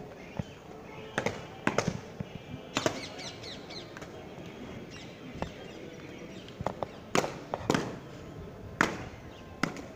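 Sharp, irregular thuds of soldiers' boots stamping on the paved parade ground during a border parade march, some coming in pairs about half a second apart.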